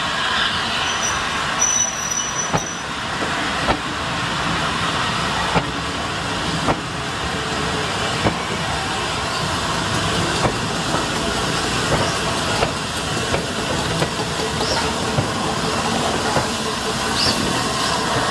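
Steam-hauled passenger train headed by the A3 locomotive Flying Scotsman rolling slowly past close by. There is a steady rumble of wheels on rail, broken by sharp clicks about once every one to two seconds as the wheels cross rail joints.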